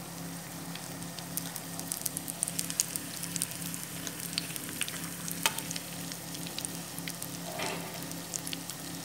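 Lumpia (spring rolls) sizzling in hot oil in a frying pan, with a steady crackle of many small pops over a low steady hum.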